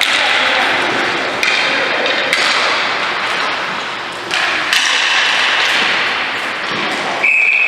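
Loud, even noise of a ball hockey game that changes abruptly a few times. A steady high whistle starts near the end.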